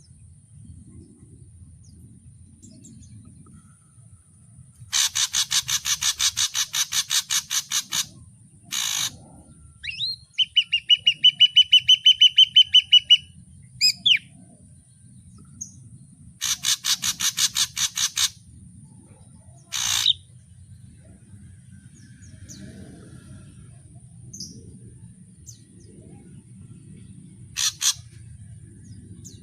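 Ashy drongo calling in varied phrases: two harsh, fast rattling calls, a quick run of clear, evenly repeated whistled notes between them, and a few short single notes, with pauses in between.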